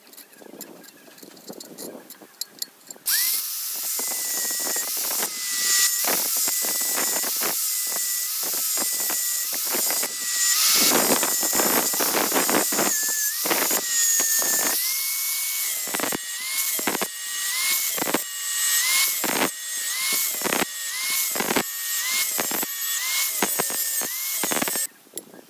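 Angle grinder with a cutting disc starting up about three seconds in and cutting into a rusty steel plate, a high motor whine that drops briefly and recovers about once a second as the disc bites, then switched off just before the end.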